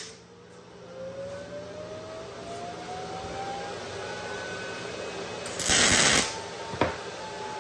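Miller Multimatic 220 AC/DC MIG welder striking a short tack weld about five and a half seconds in, the arc sounding for under a second, followed by a sharp click. Before the weld there is a low steady hum with a faint rising whine.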